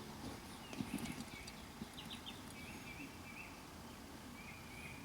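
Faint quiet with a few light knocks, a cluster about a second in and one more near two seconds, and faint high chirps in the background.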